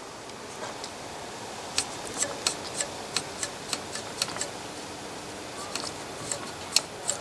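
Sharp, irregular clicks, several a second, from metal being worked on the tuning capacitor of a 1937 Sears Silvertone tube radio, whose bent plates are rubbing, over a faint steady hiss. The clicks start about two seconds in, pause briefly and come again near the end.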